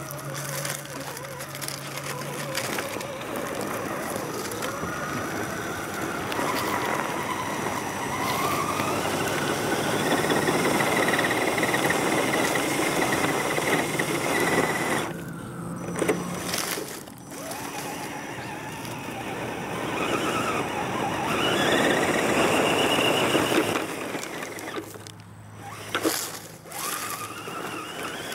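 Axial SCX10 RC crawler's electric motor and gear train whining, the pitch rising and falling with the throttle, while the tyres scrabble in loose dirt. The whine cuts out briefly twice.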